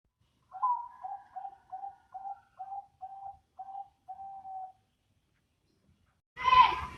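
A Bangkok dove, a cage-bred cross of the derkuku line, cooing a run of about eight short, quick notes at roughly two a second, ending on one longer drawn-out coo. Near the end a louder, rougher sound breaks in.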